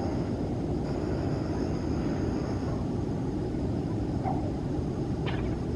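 Steady low rumbling outdoor noise, with a couple of brief high chirps near the end.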